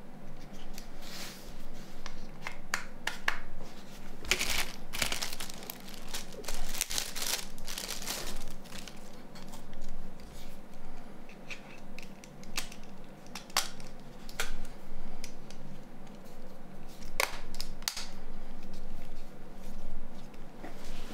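Plastic and metal parts of a Nokia N93 phone being handled and fitted together by hand: scattered clicks and short scrapes as the back battery cover is laid on and pressed into place, busiest in the first half.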